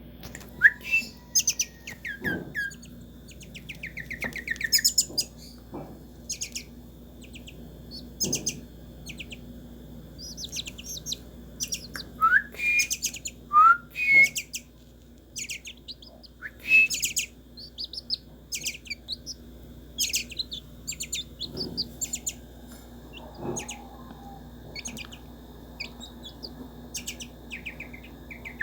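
Wild birds calling: many short chirps and quick trills, with a few sharp rising calls about twelve to fourteen seconds in. Among them are a gray kingbird (pitirri) and a Venezuelan troupial.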